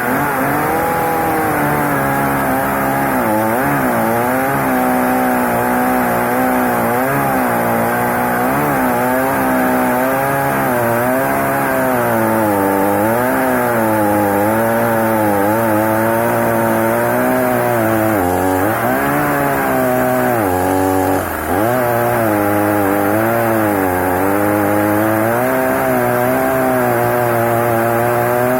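Chainsaw running flat out through a cut in wood, its pitch sagging and recovering over and over as the chain loads and frees. There is a brief drop in level about two-thirds of the way through.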